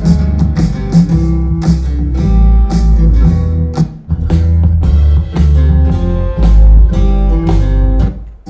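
Music played through computer speakers as a sound test: a guitar-led beat over drums and heavy bass, with a brief drop in level near the end.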